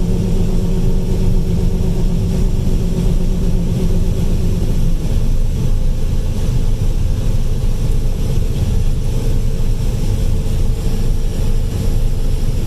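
Combine harvester running steadily while harvesting corn: a loud, even machinery drone. A steady hum within it fades out about five seconds in.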